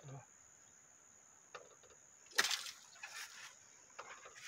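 A few brief small splashes at the reservoir's water surface, where a fish is at the baits, over a steady high-pitched drone of insects.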